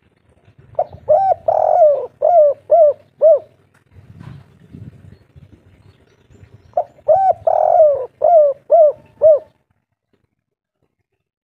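Spotted dove cooing its 'kuk 3' song twice, a few seconds apart. Each phrase is two short coos, a longer drawn coo, then three quick closing coos.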